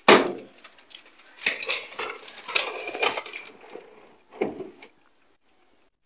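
Foil-lined metal baking tray being slid onto an oven rack: a loud clank as it goes in, then scraping and rattling of metal on metal with crinkling foil, and another knock about four and a half seconds in.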